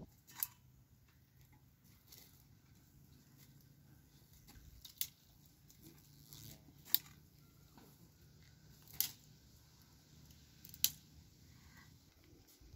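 Small wood cooking fire crackling quietly, with about five sharp pops spaced a couple of seconds apart.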